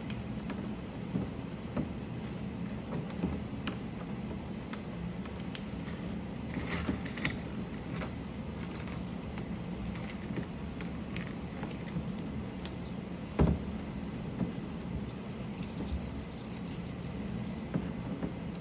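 Small plastic keyboard parts, keycaps and switches, clicking and clattering as they are handled and fitted. There are scattered light clicks, two busier spells of clatter and one louder knock about thirteen seconds in, over a steady low hum.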